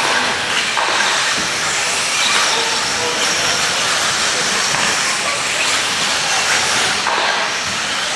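Radio-controlled off-road cars racing on an indoor dirt track: a steady hissing whir of their small motors and tyres on the dirt, with faint thin whines.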